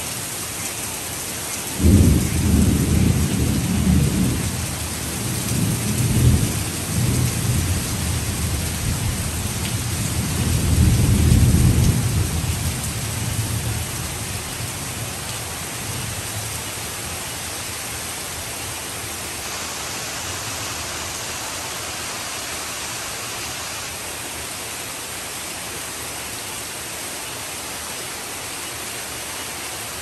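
Heavy rain pouring steadily, with a thunderclap about two seconds in that rolls on with a deep rumble, swelling twice more, and fades out after some ten seconds.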